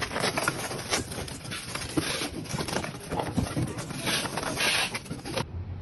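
Hard sawdust charcoal briquettes clicking and knocking against one another as a hand shifts them in a pile. Near the end this cuts off to a low steady hum.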